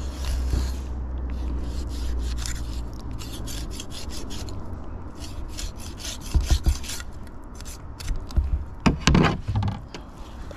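A knife cutting through a coho salmon's head and fin bones in quick, repeated scraping strokes, with a few heavier knocks later on as the head is separated.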